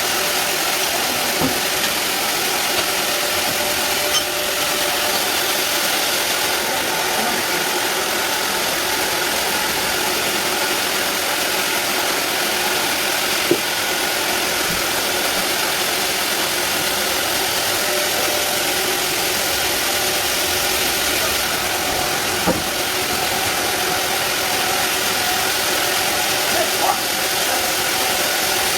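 Band sawmill running steadily: a dense, even machine noise with a few steady tones, broken now and then by a faint knock.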